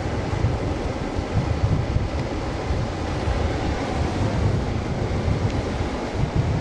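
Wind buffeting the microphone over small waves washing onto a sandy shore: a steady rushing noise with an uneven low rumble.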